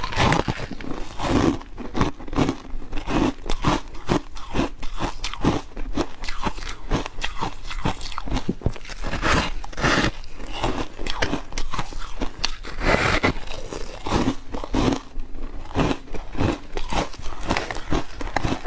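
A person biting into and chewing foam ice (frozen aerated ice) close to the microphone: a steady run of crisp crunches and crackles, one after another.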